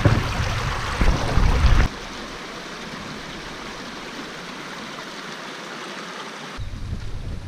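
Shallow stream running over rocks and gravel, a steady rushing, babbling noise. A low rumble lies over it for the first two seconds and comes back near the end.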